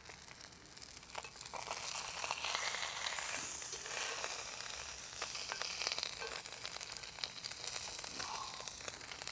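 Whole brown trout frying in olive oil in a hot cast-iron pan, sizzling steadily. The sizzle grows louder about a second and a half in as the fish is turned onto its uncooked side, with scattered light clicks and pops.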